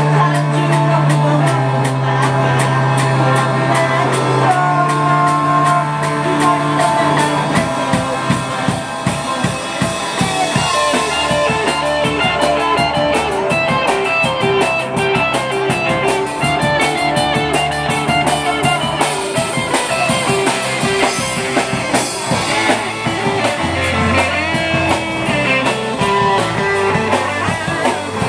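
Live rock band playing electric guitars over a drum kit. Long held chords for the first several seconds give way to a busier passage of steady drumming and quick repeated guitar notes.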